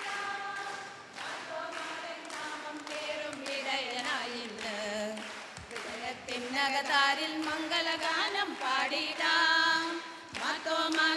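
A group of voices singing a celebratory song together without instruments, with steady rhythmic hand clapping through the first few seconds. The singing gets louder about six seconds in.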